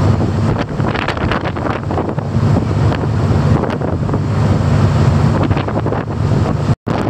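Wind buffeting the microphone on a fast ferry's open deck, over a steady low drone from the ship and the rush of its wake. The sound cuts out for an instant near the end.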